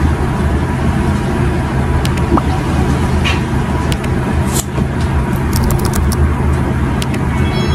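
Steady low rumbling background noise with a few light clicks.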